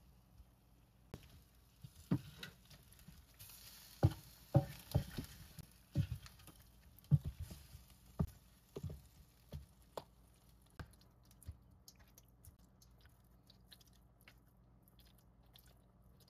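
A silicone spatula and tongs stir and turn saucy baked chicken drumsticks in an enamel roasting pan, giving irregular knocks, taps and soft squelches. These are loudest and most frequent in the first half and thin out to faint ticks later.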